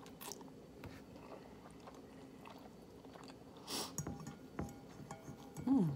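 Chewing and slurping of spicy instant noodles close to the microphone, with light clicks of a metal fork against the ceramic bowl. A short rushing slurp about four seconds in, and a brief falling 'mm' from the eater's voice near the end.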